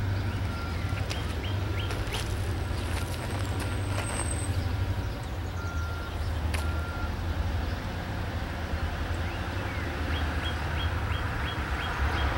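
Diesel-electric locomotives, the Maryland Midland's GP38-3s, rumbling low and steady from down the line. A bird chirps in short quick runs near the start and again near the end.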